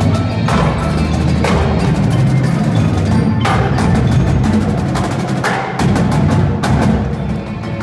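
Indoor percussion ensemble playing: marching snare and tenor drums with rapid sharp stick strikes, bass drums and marimbas, with a cymbal crash about every one to two seconds over sustained low notes.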